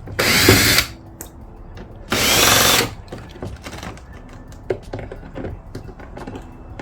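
Power drill running in two short bursts about two seconds apart, backing out the screws that hold the car's mud flap, with light clicks of handling in between.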